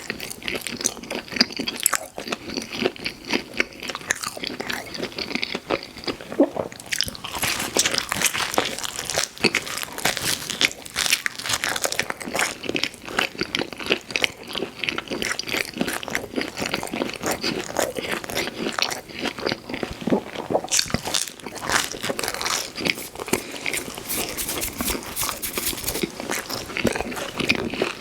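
A person biting and chewing pizza, the mouth sounds heard up close as a dense, unbroken run of small clicks.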